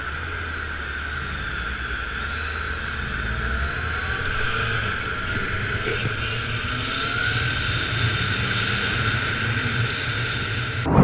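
Motorcycle running as it rides along a street, engine drone mixed with wind noise on the camera microphone. The engine note rises a few times in the middle as the bike accelerates.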